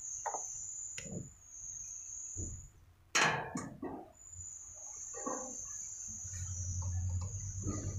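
Clicks and knocks of hands and a pry tool working a Honda Civic's plastic rear door trim panel, with one sharp clack about three seconds in. A steady high-pitched trill runs underneath, and a low hum grows near the end.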